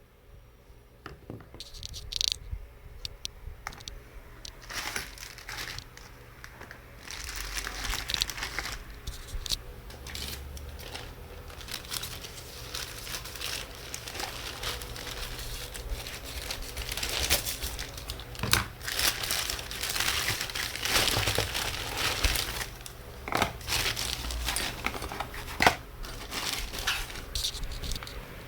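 Dense crinkling and rustling from something crinkly being handled, with many small clicks and taps, growing busier about a quarter of the way in.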